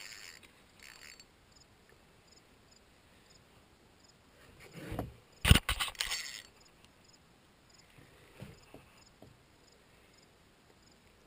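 Calm lake quiet, broken about five seconds in by a short swish and then a quick cluster of sharp knocks and clatter against the canoe hull, with a few faint small knocks later on.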